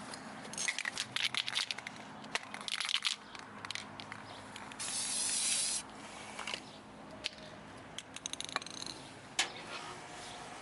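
Crackling, rustling workshop handling noises with sharp clicks, and one even hiss lasting about a second near the middle.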